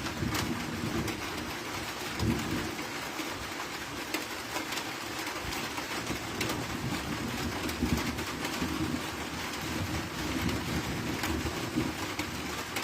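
Steady rain with many drops ticking, under low rolling thunder that swells twice.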